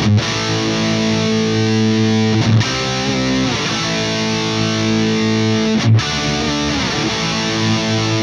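Overdriven electric guitar, a PRS Custom 24 played through a Myasnikov Superlead preamp into a Celestion Vintage 30 speaker, ringing out sustained chords that change twice, about two and a half and six seconds in.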